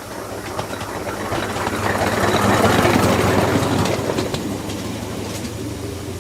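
A 7.25-inch gauge miniature live-steam train running past on its track. It grows louder to a peak about halfway and then fades, with wheels clicking over the rail joints.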